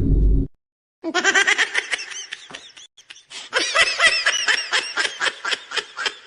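Meme laughing sound effect: a high-pitched laugh in quick, rapid pulses, following a loud, deep sound effect that cuts off about half a second in.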